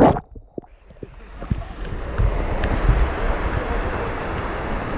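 Steady rush of falling water from a waterfall, with low wind rumble on the microphone. It rises out of a short quiet gap at the start and settles within about a second.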